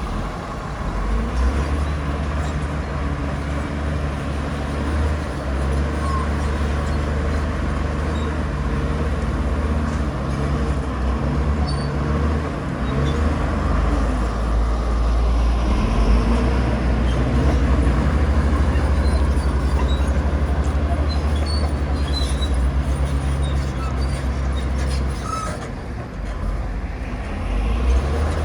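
Heavy diesel earthmoving machinery running under load, a deep steady engine drone that swells about a second in and dips briefly near the end before picking up again.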